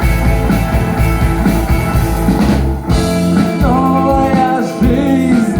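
A song playing loudly: a full band sounds between sung lines, and a sliding, bending melodic line rises above it in the second half.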